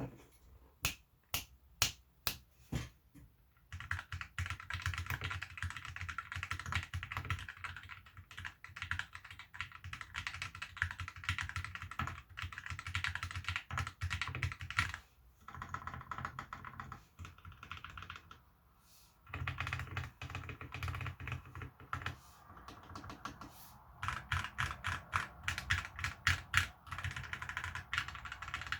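FL Esports F12 mechanical keyboard with lubed Kailh Box Red linear switches being typed on. It starts with a handful of single keystrokes, then goes into fast continuous typing broken by a few brief pauses.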